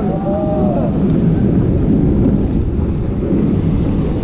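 On-board sound of the Helix roller coaster in motion: wind buffeting the microphone over a steady rumble of the train on its steel track. A few riders' screams rise and fall in the first second.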